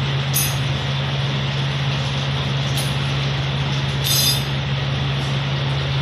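A steady machine drone with a constant low hum, with a few short high-pitched sounds on top, the clearest about four seconds in.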